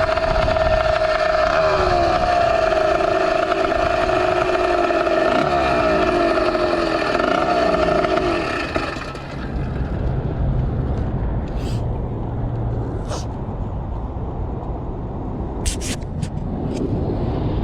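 Small two-stroke motorized bicycle engine running at a steady high pitch, with a second, wavering engine note beneath it. About nine seconds in the engine note falls away, leaving a low rumble, wind noise and a few sharp clicks.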